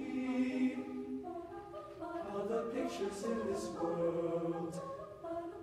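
Mixed chamber choir singing a cappella: held chords in several voice parts that move to new notes about a second in and again past two seconds, with short soft 's' hisses of the sung words.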